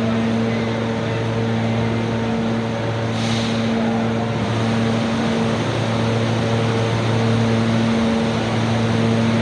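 R160 subway train standing at a station platform with its doors open, its onboard equipment humming steadily over platform noise; a short hiss about three seconds in.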